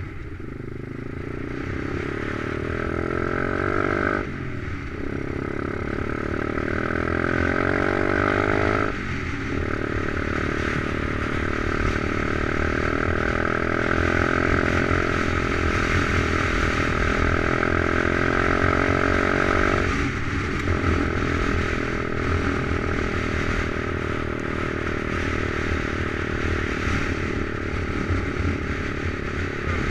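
Stomp pit bike's 125cc Lifan single-cylinder four-stroke engine pulling hard under riding load, its note climbing in pitch as it revs. It breaks off briefly three times, about 4, 9 and 20 seconds in, at gear changes.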